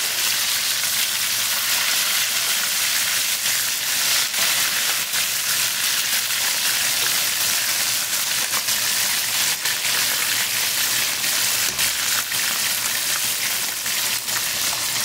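Flour-coated fish fillets frying in hot oil in a pan: a steady sizzle dotted with constant fine crackles and pops.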